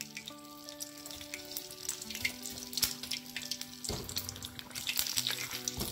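Batter-coated banana pepper bajji deep-frying in hot oil, a continuous irregular crackling sizzle.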